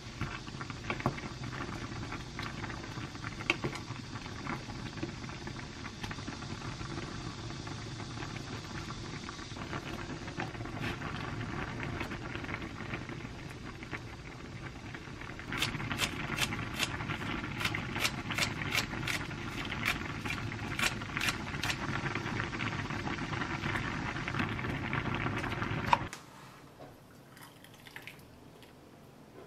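A pot of kimchi sujebi (hand-torn dough soup) boiling hard, a steady bubbling with small pops. From about halfway, sharper ticks come roughly twice a second over the bubbling. The sound stops suddenly near the end.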